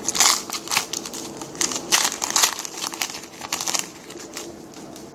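Foil wrapper of a 2010 Panini Certified football card pack being torn open and crinkled by hand, in irregular bursts that thin out after about four seconds.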